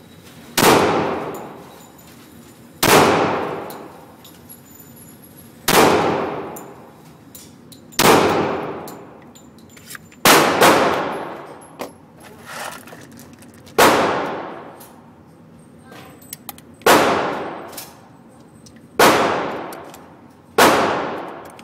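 Glock 20 SF 10mm Auto pistol firing slow, single shots, about ten in all, mostly two to three seconds apart with one quick double near the middle; each sharp report rings off with a long echoing decay.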